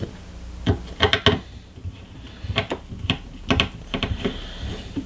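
Small screwdriver and screws clicking and tapping against metal parts while screws are driven into a PC motherboard: a run of irregular sharp clicks.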